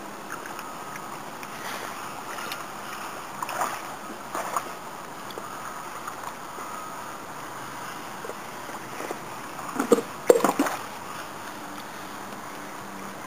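Water sloshing and splashing as river otters swim and grab fish in their pool, with a few sharper splashes and a louder cluster of sharp sounds about ten seconds in.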